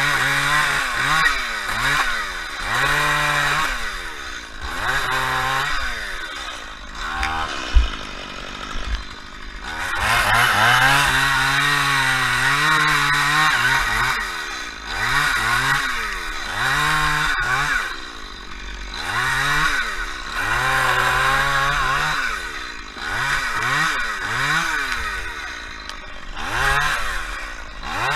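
Chainsaw revving up and falling back in repeated bursts about every two seconds while cutting palm tree wood. It drops back to a lower idle for a couple of seconds with a single sharp knock about eight seconds in.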